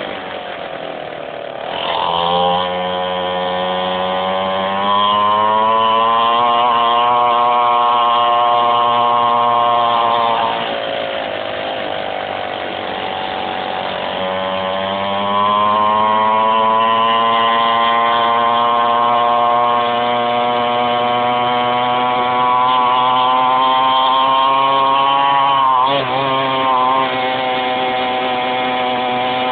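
A 49cc mini quad's small two-stroke engine running under throttle as it rides. The pitch climbs over a few seconds and holds high, drops back about ten seconds in, then climbs again and stays up, with a brief dip near the end.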